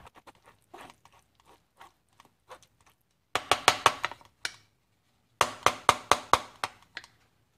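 Wooden spatula scraping and pressing cooked tomato pulp through a stainless steel mesh strainer: a few soft scrapes, then two quick runs of rapid strokes, about three and five and a half seconds in.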